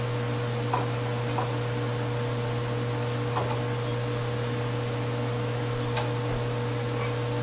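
Steady low mechanical hum with a thin, higher steady tone above it, broken only by a few faint light clicks.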